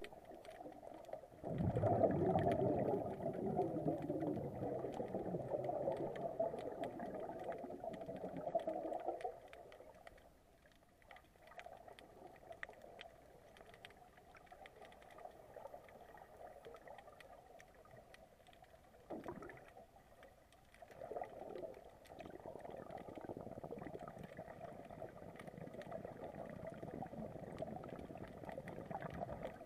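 Scuba regulator exhalation underwater: exhaled air bubbling and rushing out in long breaths. A long loud one runs for several seconds, then a quieter stretch, two short bursts, and another long breath near the end.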